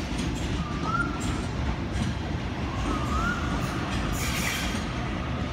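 Sydney Trains Waratah double-deck electric train arriving at the platform: a steady rumble of wheels on rail with two short rising whines about two seconds apart, and a brief hiss about four seconds in.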